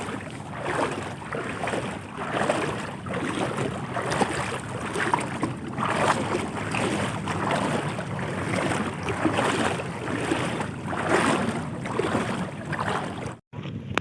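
Wind buffeting the microphone over a steady low rumble and water noise. Near the end the sound cuts out briefly, then comes a run of quick ticks.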